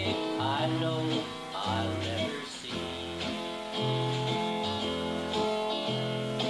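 Country music instrumental break: acoustic guitar playing over a bass line that moves about every half second, with no singing.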